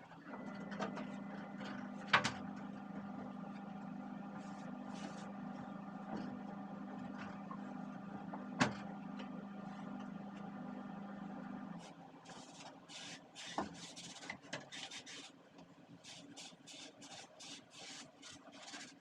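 A steady electric motor hum, like a kitchen exhaust fan running, with a couple of sharp knocks; it cuts off about two-thirds of the way in. Then come quick rough scrubbing or wiping strokes, one or two a second.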